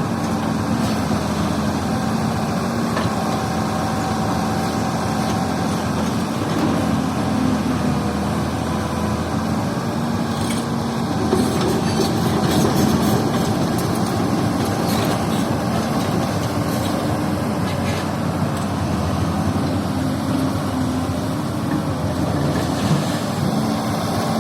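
Excavator's diesel engine running steadily under work, with a slight swell in level about halfway through.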